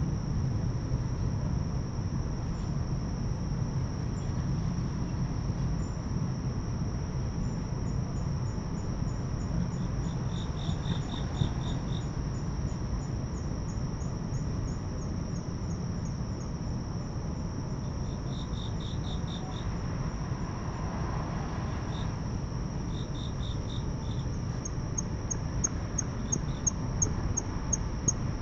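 Insects singing, crickets among them: a steady high-pitched trill throughout, with short bursts of quick pulsed chirps every few seconds and trains of rapid high ticks, over a low steady rumble.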